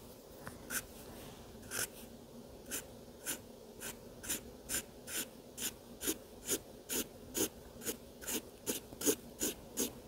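Marker tip scratching on drawing-pad paper in short, quick strokes, about two a second, as twig lines are drawn.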